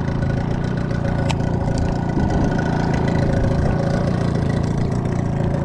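Boat engine running steadily, with one sharp click about a second in.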